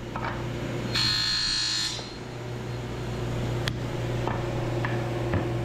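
Sliding table saw motor running steadily, its blade cutting into a poplar board for about a second, about a second in, as the board is pushed across the blade to plow out a tenon cheek. A single sharp click follows a couple of seconds later.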